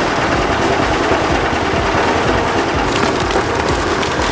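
Concrete mixer emptying wet concrete into a wheelbarrow: a loud, gritty rattling rush of the mix tumbling out of the drum, growing brighter about three seconds in.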